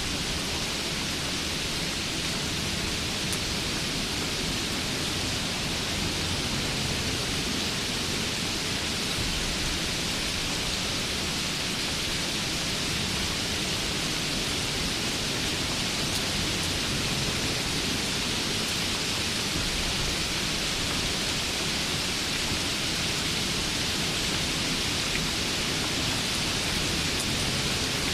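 Steady rain falling, an even, unbroken hiss with a low rumble underneath.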